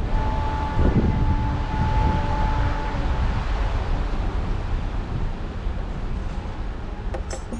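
Wind buffeting the microphone aboard a cruise ship under way, over a steady low rumble, with a stronger gust about a second in. A faint held tone runs through the first three seconds.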